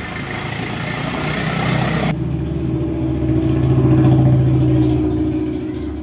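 A motor vehicle engine running, getting louder to a peak about four seconds in and then fading, with a steady low drone.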